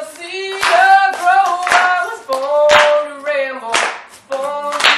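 A voice singing a melody of held notes, with sharp hand claps about once a second keeping time; the claps are the loudest events.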